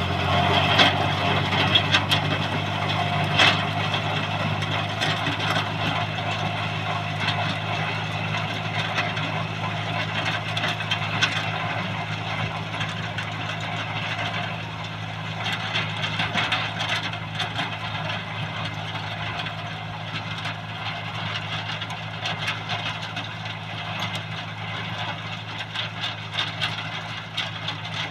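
Farm tractor engine running steadily while working with a rotary tiller, a constant low hum with irregular clattering over it, a little louder in the first few seconds.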